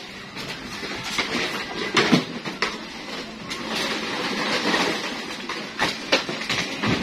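Plastic crates knocking and clattering as they are pulled from a scrap pile and tossed together, with a handful of sharp knocks.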